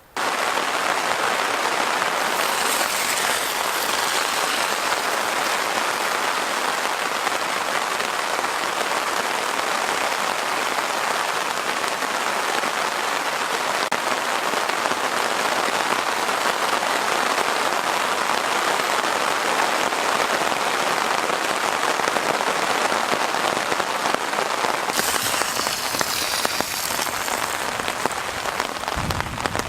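Heavy thunderstorm rain pouring down as a dense, steady hiss. It swells with a brighter hiss about three seconds in and again near the end.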